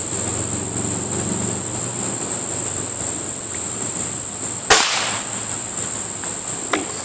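A single shot from a Beeman RS2 spring-piston air rifle firing a .22 pellet: one sharp, pretty loud crack about two-thirds of the way in, over a steady high-pitched insect drone. A much fainter click comes near the end.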